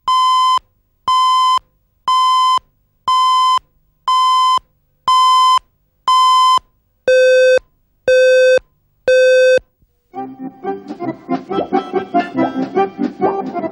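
Broadcast countdown-leader beeps: ten short steady tones, one a second, the first seven higher and the last three an octave lower. About ten seconds in, accordion music starts.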